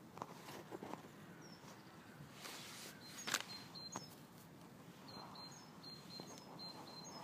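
European robin singing faintly: a run of short, thin, high notes starting about three seconds in. A single sharp click cuts in near the middle.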